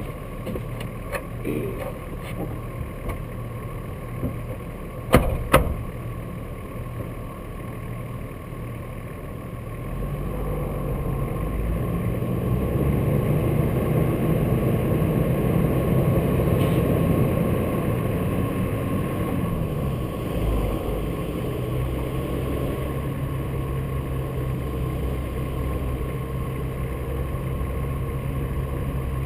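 Nissan Patrol 4x4 engine running at low revs. From about ten seconds in it pulls harder and gets louder as the vehicle drives along the snowy track, with tyre and wind noise, then eases off a little near twenty seconds. Two sharp knocks sound close together about five seconds in.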